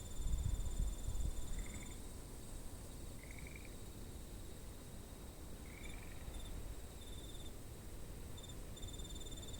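Insects chirping in high, fast pulsed trills that start and stop in runs of a second or two, with a few short rising calls among them. A low rumble in the first second or so.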